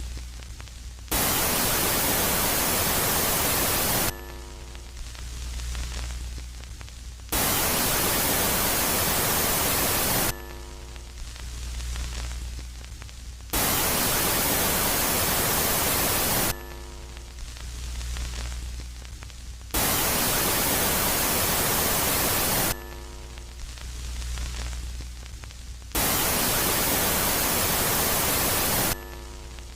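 Ambient 'space sound' track for Jupiter's moon Megaclite, switching between a loud phase and a quiet phase. The loud phase is an even static hiss lasting about three seconds and cutting in and out abruptly; the quiet phase is a low hum with faint steady tones. It swings between the two about every six seconds, with five loud bursts.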